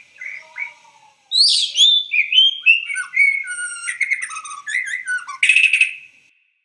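Bird song: a quick run of varied chirps and whistled notes sliding up and down, louder after the first second, ending in a harsh buzzy note that cuts off sharply.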